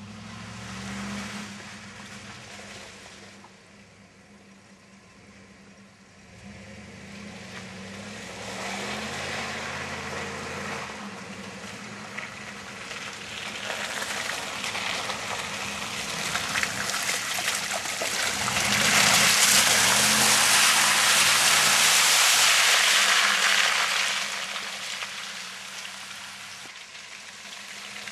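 Chevy Silverado pickup engine revving up and down in several pulls as the truck drives through mud, with a loud hiss of tyres churning through wet mud and water that builds through the middle and is loudest about two-thirds of the way in before easing off.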